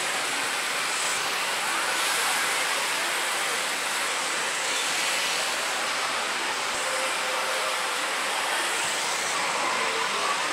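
Steady, dense din of a pachinko and pachislot hall's machines: an even wash of noise that never lets up.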